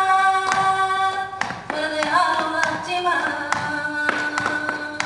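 A woman's voice singing flamenco, unaccompanied by instruments: long held notes with ornamented, wavering turns, in two phrases with a short break about a second and a half in. Irregular sharp percussive hits sound throughout.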